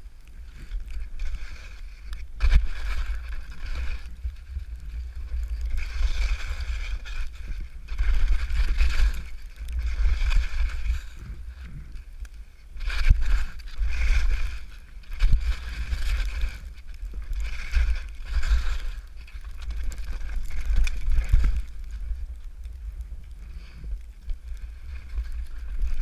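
Skis swishing through fresh powder in a series of turns, a swell of hiss every second or two, over a heavy low wind rumble on the camera's microphone.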